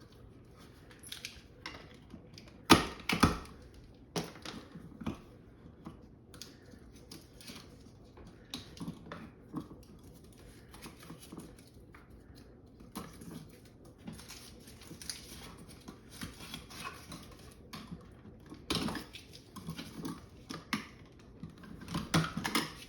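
Irregular clicks, snips and rustles of electrical cable being stripped and handled with wire strippers, with a louder pair of sharp clicks about three seconds in.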